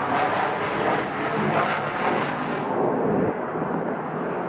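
F-35A Lightning II fighter's single F135 afterburning turbofan at high power as the jet climbs out on departure, a dense crackling jet noise. After about three seconds the sharper upper part fades as the jet pulls away.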